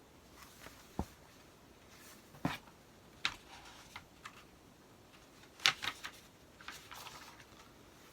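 Scattered light taps and paper rustles from a picture book being handled and a page turned, the loudest rustle a little past halfway.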